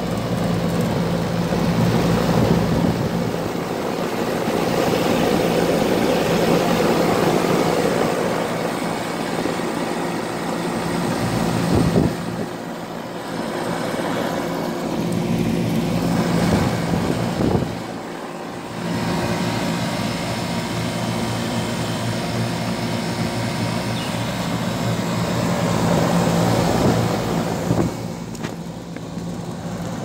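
Old Goodman packaged HVAC unit running, its top condenser fan blowing air steadily over a constant low hum.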